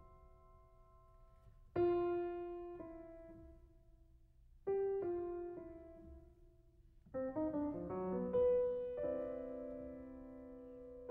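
Slow solo piano music: a chord about two seconds in, another near five seconds, then a quick run of notes leading into a held chord near the end.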